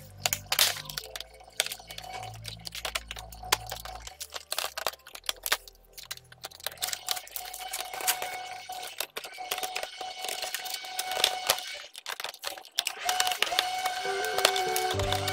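A run of irregular clicks and rattles, over quiet background music.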